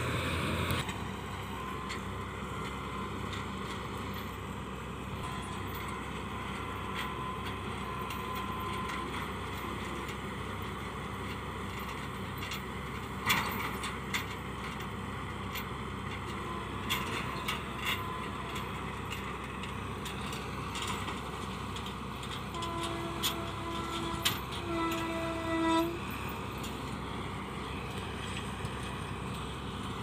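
Kuldeep combine harvester running steadily while harvesting wheat: its engine and threshing machinery make a continuous mechanical noise with scattered clicks. About three quarters of the way through, two short pitched tones sound.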